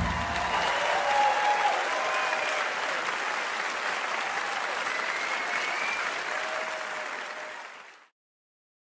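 Audience applause with faint cheering, steady, then fading and stopping about eight seconds in.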